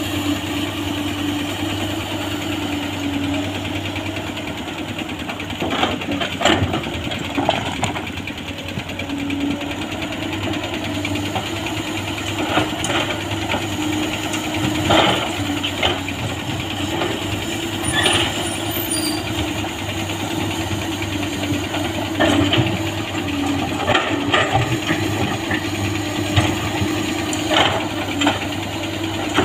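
Komatsu PC200 hydraulic excavator's diesel engine running steadily at low revs, with scattered sharp knocks and clanks, about a dozen, as bucket and stones strike.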